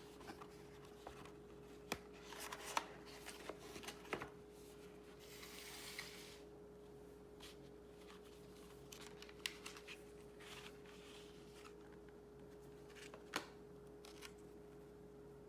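Faint handling noises: scattered small clicks and brief rustles, as of hands working on computer parts and their packaging, over a steady faint hum. The clicks bunch up about two to four seconds in, with a single sharper click near the end.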